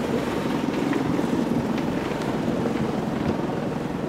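Steady wind buffeting the microphone on a sailing boat under way, over the wash of the sea.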